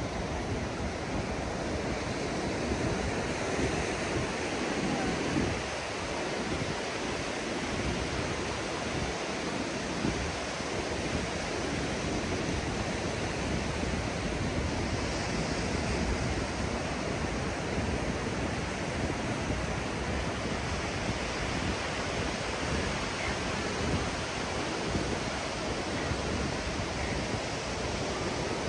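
Ocean surf washing steadily onto a sandy beach, a continuous rushing hiss with no distinct events.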